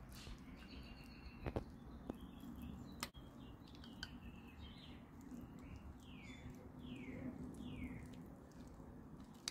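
Faint outdoor birdsong: scattered chirps, then three falling calls in a row near the end, over a steady low hum. A metal spoon clicks against the salsa bowl twice in the first few seconds.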